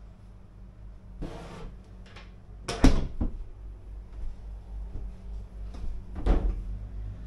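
A few short knocks and thuds, like fittings being opened and shut, over a steady low hum. The loudest is a sharp knock about three seconds in; another comes about six seconds in.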